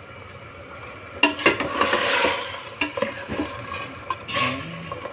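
Metal ladle stirring pork hock pieces in a stainless steel pot, with knocks and scrapes against the pot and the sauce sizzling. It is quieter for about the first second, then the knocks and scraping pick up.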